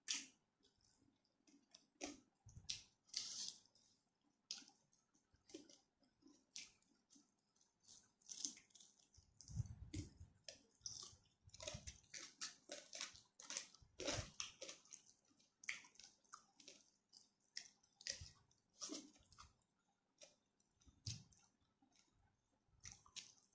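A person chewing and eating rice with spicy stir-fried chicken: many short, irregular chewing and mouth clicks, with a few deeper bites in the middle.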